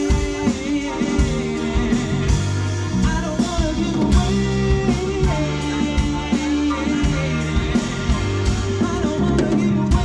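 Live band playing a soul-pop song: drum kit, electric bass, electric guitar and keyboard, with singing.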